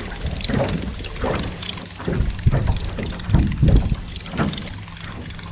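Wind buffeting the microphone in irregular gusts, with small waves lapping against the hull of a small aluminium jon boat.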